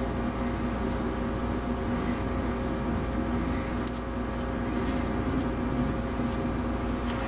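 A steady machine hum, with a few faint, brief scrapes of a comb drawn through pomaded hair around the middle.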